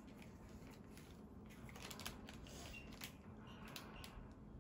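Faint rustling and small scattered clicks of a clear plastic packaging bag and fabric being handled.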